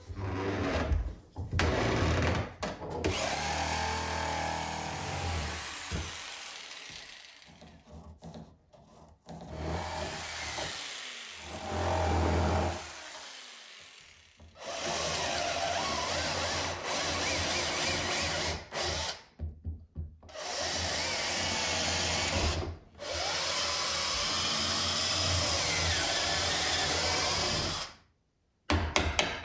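Corded electric drill boring into the end grain of a black walnut blank, running in several long stretches that stop and start again.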